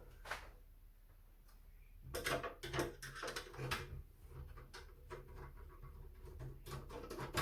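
Clicks, light knocks and scraping as the parts of an early Compaq Portable computer are handled and worked loose during disassembly. A steady low hum runs underneath. The handling starts quietly and grows busier about two seconds in.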